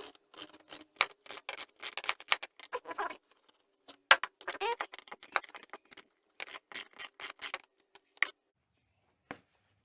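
Socket ratchet with an extension clicking in quick runs of strokes as it works a 12 mm bolt loose, in several bursts with short pauses between them.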